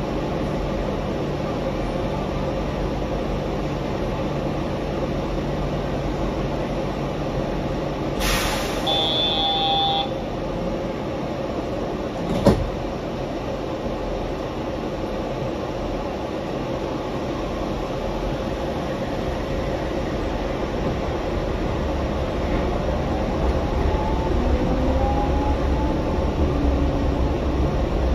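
Yurikamome rubber-tyred automated train running, heard from inside the car as a steady rolling noise. There is a short hiss with a high beep about eight seconds in and a sharp knock a few seconds later. Near the end the noise grows louder, with a rising whine.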